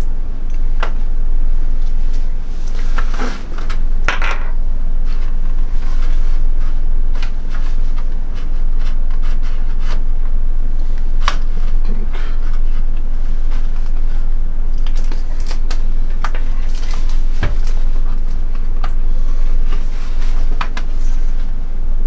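Scattered clicks, knocks and scrapes of objects being handled, over a steady low hum.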